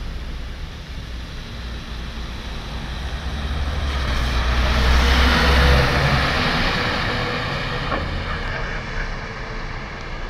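A bus driving past on a wet road. Its engine rumble and the hiss of its tyres on the wet asphalt build to a peak about halfway through, then fade as it moves away.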